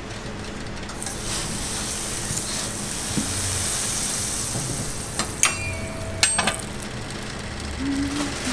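Fat sizzling on a hot flat-top griddle, a steady hiss. About five and a half and again about six and a half seconds in come sharp metallic clinks with a short ring, as the metal egg mold is set down on the griddle.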